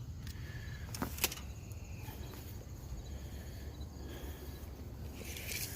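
Crickets chirping faintly over a low steady rumble, with two sharp clicks about a second in and a short hissing rasp near the end.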